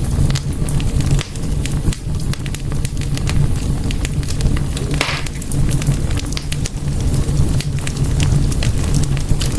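Wood fire burning in a fireplace: many irregular sharp crackles and pops over a steady low rumble of the flames, with a short hiss about halfway through.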